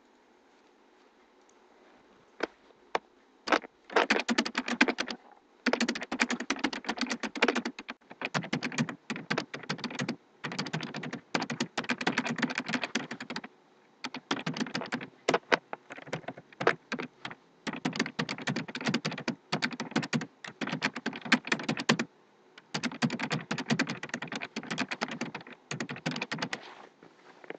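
Typing on a computer keyboard in quick runs of keystrokes, separated by short pauses.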